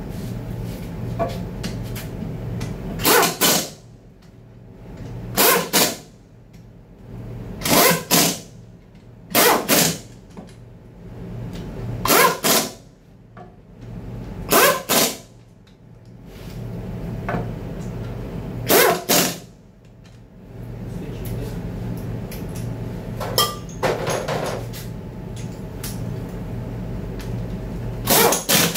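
Impact wrench run in short bursts, about nine of them, some doubled, spaced a few seconds apart, driving bolts inside a transmission's bellhousing. A steady low hum runs between the bursts.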